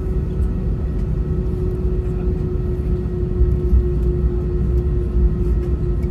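Cabin noise inside an Airbus A320 with its engines running before takeoff: a steady low rumble with a constant hum over it.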